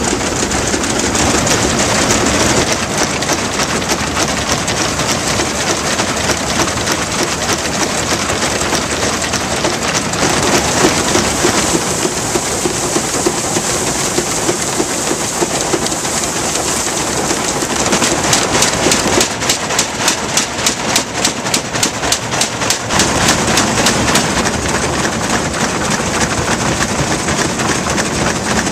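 S.K. Campbell threshing machine running under belt drive while straw is fed in: a steady, dense clatter from its spinning pulleys, belts and shaking parts, with a stretch of fast, regular clicking partway through.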